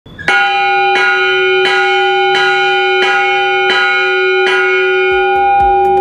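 Large bell-metal church bell rung by swinging its clapper by hand: seven strikes about two-thirds of a second apart, each adding to a sustained, many-toned ring that carries on after the last strike.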